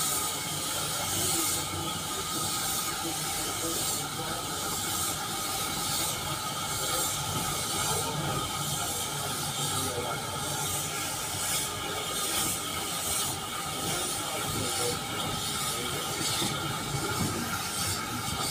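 Narrow-gauge steam train getting under way, heard from a carriage window: the locomotive's steam hissing and its exhaust chuffing in a regular beat, over the rumble of the carriage wheels on the rails with a faint squeal.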